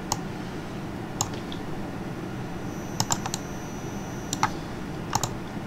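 Scattered key presses on a computer keyboard, about nine sharp clicks at uneven intervals, with a quick cluster of three about three seconds in and a pair near the end, over a low steady hum.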